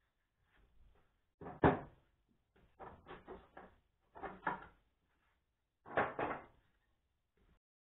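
Thin wooden panels and boards knocking and clattering as they are picked up, shifted and set down, in a handful of separate knocks; the sharpest is about two seconds in.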